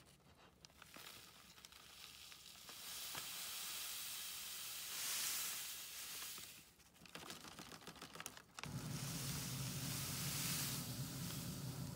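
Dried acorn flour pouring off parchment paper into a glass jar: a soft, sandy hiss that swells in the middle and fades out. Near the end a steady low hum sets in abruptly.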